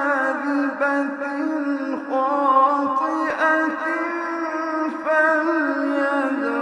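A man's voice in melodic Quran recitation, drawing out long held notes that bend and waver in pitch.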